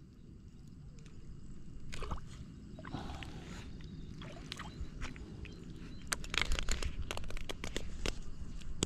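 Water splashing and sloshing as a hooked fish is grabbed by hand at the water's edge. Irregular knocks and scrapes of handling close to the microphone come thickest in the last few seconds.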